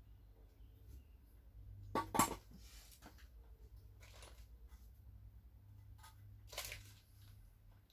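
Small metal parts clinking and clattering as they are handled, with a sharp clatter about two seconds in, a second shorter one later, and a few light ticks between.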